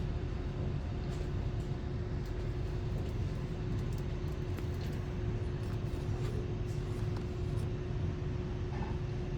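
Steady low rumble with a constant mid-pitched hum and a few faint clicks: background room noise with no speech.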